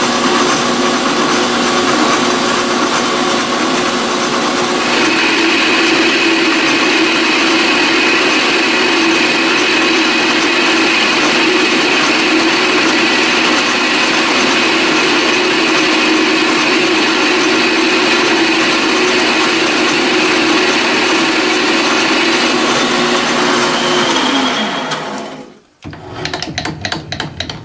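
King Canada 10 x 22 benchtop lathe running with its chuck spinning while the tool takes a 20-thou turning cut; a higher whine joins about five seconds in. Near the end the motor winds down and stops, followed by a short rapid rattle of clicks.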